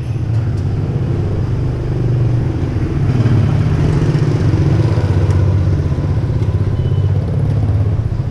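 Motorbike engine running close by as a motorbike passes right beside, a low rumble that swells to its loudest about halfway through.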